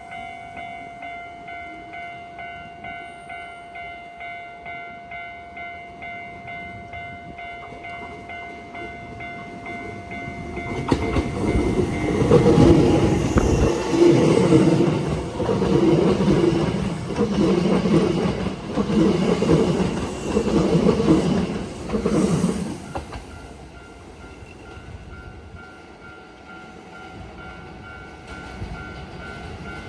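Japanese level-crossing warning bell ringing steadily, about two strikes a second. About 11 seconds in, a Hankyu electric train runs over the crossing for some twelve seconds, its wheels clacking in a regular rhythm over the rail joints and drowning the bell. Afterwards the bell is heard faintly again as the train goes.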